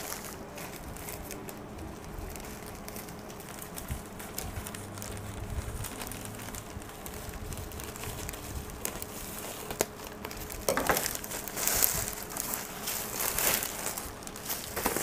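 Plastic courier mailer and bubble wrap crinkling as a parcel is opened and unpacked, with scattered small crackles at first and louder rustling bursts in the last few seconds as the wrapped item is pulled out.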